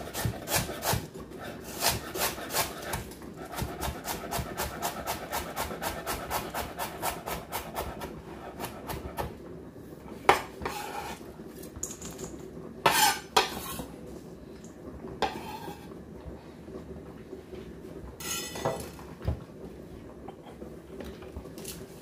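Knife slicing white cabbage on a bamboo cutting board: quick, even chopping strokes for the first several seconds, then slower. Later come a few louder scrapes and knocks as the blade sweeps the shredded cabbage into a stainless steel bowl, metal against metal.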